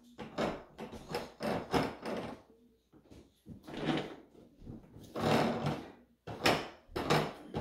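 A crawling baby's hands and knees knocking on a hard plastic play panel lying on the floor, jostling its snap-in plastic gear and shape pieces. Irregular knocks and rattles, with a longer scrape about five seconds in.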